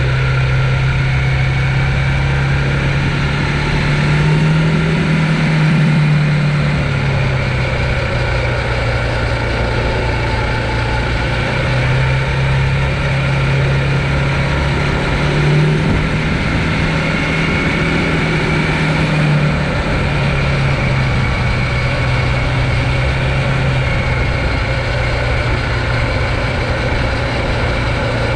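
Riding noise from a Conway EMC 529 e-mountain bike: a steady low hum whose pitch rises and falls a couple of times, over wind rumble on the camera microphone.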